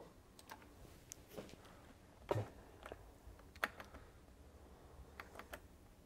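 Faint, scattered clicks and taps of a computer keyboard and mouse being worked, irregularly spaced, the loudest a little past two seconds in.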